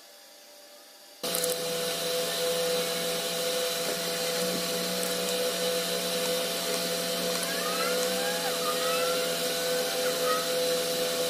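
A small electric motor whirring steadily with a fixed hum and a high whine, switching on abruptly about a second in. A few faint short chirps glide up and down near the end.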